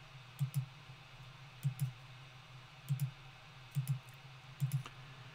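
Computer mouse buttons clicked five times, about once a second, each click heard as a quick double tick, stepping the frequency setting of an on-screen waveform generator.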